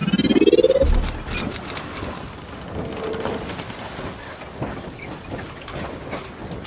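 Logo intro sound effect: a rising whoosh that ends in a low boom about a second in, followed by a noisy hiss with scattered clicks.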